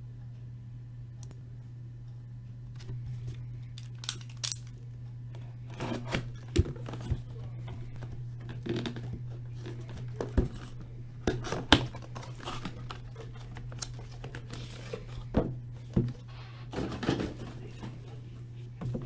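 Hockey card box packaging being torn open: a series of short, irregular tearing and crinkling rustles of plastic wrap and cardboard, starting a few seconds in.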